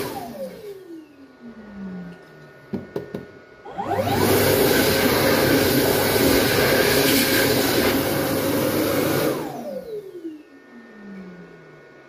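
Dyson Airblade hand dryer winding down with a falling whine as its air jet cuts off. A few short clicks follow about three seconds in. It then starts again with a rising whine, blows air steadily for about five seconds, and winds down with another falling whine.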